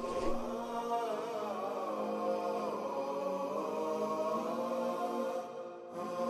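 Background music: a slow, wordless vocal chant with held notes that glide slowly up and down, fading briefly near the end.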